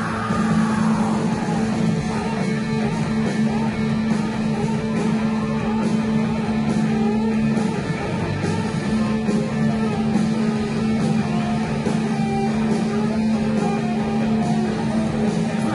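Punk rock band playing live at full volume: distorted electric guitars to the fore over bass and steady drum beats with regular cymbal hits, in a large hall.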